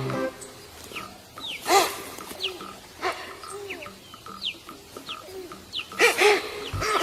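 Animal calls, bird-like: short, quick falling chirps repeated every second or so, mixed with lower arching coo-like calls, the loudest about two seconds in and again near the end.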